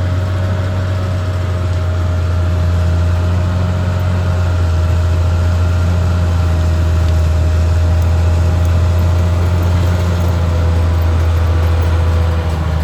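Caterpillar D6R XL bulldozer's diesel engine running steadily, a loud even low drone with a faint steady whine above it.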